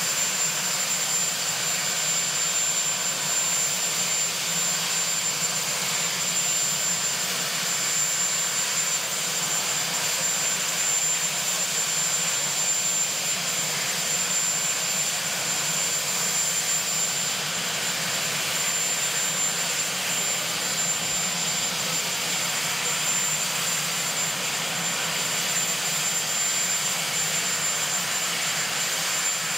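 Marine One, a Sikorsky VH-3D Sea King, running its turbine engines: a steady, loud rush of engine noise that does not change.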